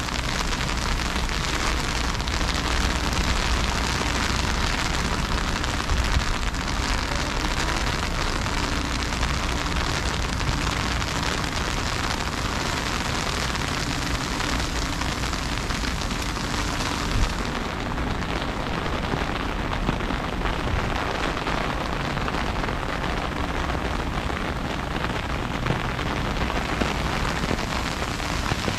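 Heavy freezing rain falling in a dense, steady patter of drops, with a low rumble underneath. The highest part of the hiss thins out about two-thirds of the way through.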